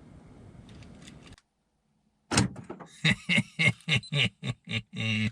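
A rapid string of sharp mechanical clicks and clunks from the vehicle, about three a second, starting about two seconds in after a few faint clicks, as the aftermarket remote-start system is programmed in a Toyota FJ.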